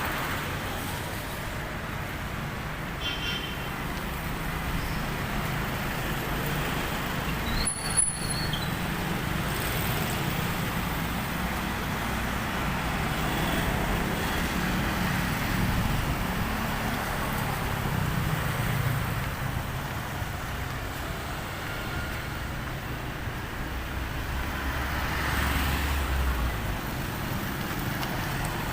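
Street traffic: engines of passing vehicles running steadily, with a heavier engine rumble building near the end. A short click and a brief high beep come about eight seconds in.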